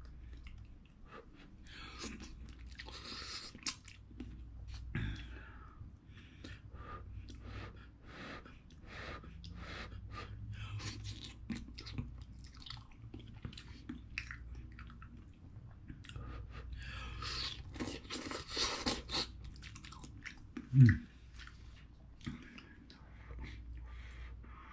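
A man eating ramen noodles up close, slurping and chewing with many small wet mouth clicks, with longer slurps a couple of seconds in and again about two-thirds through. About three-quarters through there is one short, loud throaty sound that falls in pitch.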